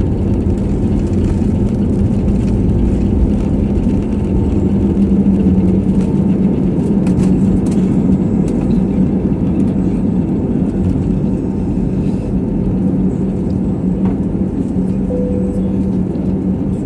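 Airbus A320's twin jet engines at takeoff thrust, heard from inside the cabin: a loud, steady drone with a strong low hum through the takeoff roll and liftoff.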